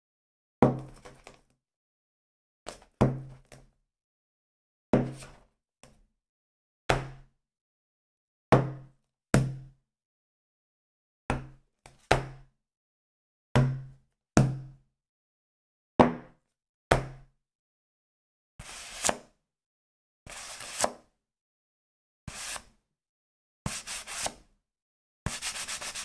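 A small book set down on a hard surface and toppling over, again and again: paired thuds, each pair about a second apart. About two-thirds of the way in, this gives way to short scraping, rubbing bursts of paper against the book.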